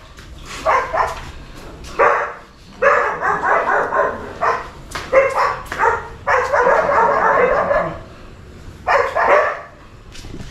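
A dog barking repeatedly: single sharp barks about a second apart, with two longer runs of rapid barking.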